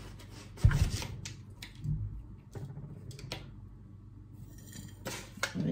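Metal spoon scooping and scraping salt in a plastic tub, with scattered clicks and a dull thump about a second in.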